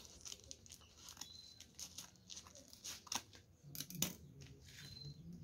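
Scissors snipping through the brown packing tape of a taped parcel in a run of short, quiet cuts, with a louder snap about four seconds in as the top of the parcel is pulled free.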